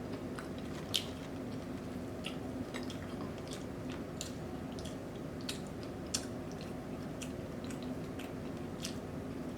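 Close-miked chewing of food eaten by hand: scattered wet mouth clicks and smacks, over a steady low hum.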